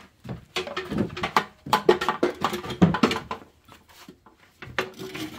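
Irregular knocks and taps from hands handling a motorcycle's metal rear fender, coming quickly over the first three seconds, then a few more near the end.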